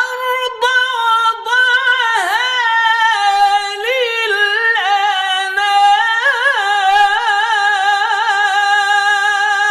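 A single voice in Quranic recitation (tajweed) style, holding one long drawn-out vowel on a high note and decorating it with quick wavering turns and small dips. It is a phrase in the jawab, the upper register, of maqam Ajam.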